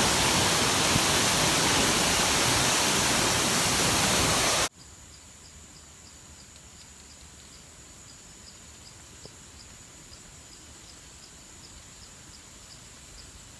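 Tat Phueng waterfall's roar: loud, steady rushing water that cuts off abruptly about five seconds in. It leaves quiet forest with insects: a high steady buzz and a short chirp repeating about twice a second.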